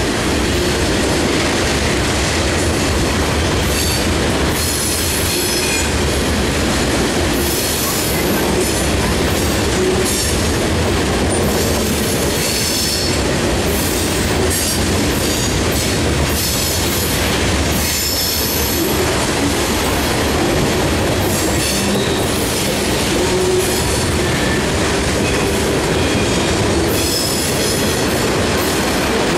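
Freight train of covered hoppers and tank cars rolling past: a steady rumble and clatter of steel wheels on the rails, with high-pitched wheel squeal coming and going every few seconds.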